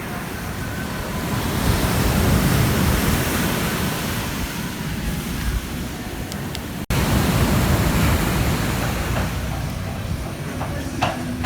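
Ocean surf breaking and washing up a beach: a steady rush that swells to a peak about two seconds in, drops out for an instant near the middle, and swells again after the break.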